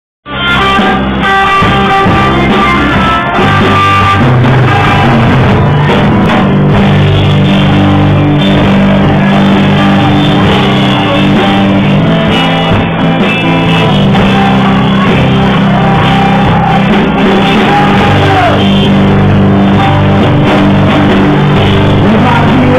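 A live rock band playing loud: electric guitar and bass over drums and cymbals, a dense, unbroken wall of sound.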